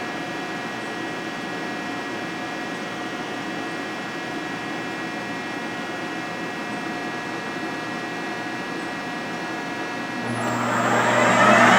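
Fryer ET-18 CNC lathe running with a steady multi-tone mechanical whine. About ten seconds in, it grows markedly louder, with a rushing hiss and a deeper hum joining in.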